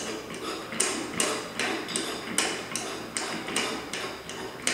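Chrome steel pole extension being hand-screwed into its threaded base: a run of short metallic clicks, about two or three a second, as the threads turn.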